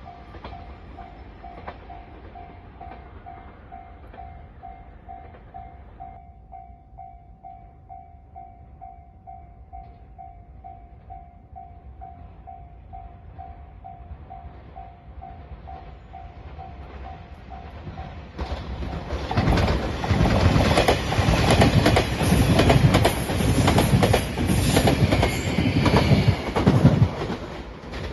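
Level-crossing bell dinging steadily, joined by a fainter higher ding about six seconds in. About eighteen seconds in, an electric express train passes over the crossing for about nine seconds, loud, with its wheels clacking rapidly over the rail joints.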